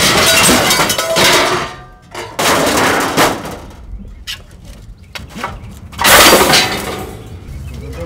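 Bicycle and scrap metal clattering and scraping as they are dragged out of a junk pile, in three loud bursts of rattling with scattered knocks between.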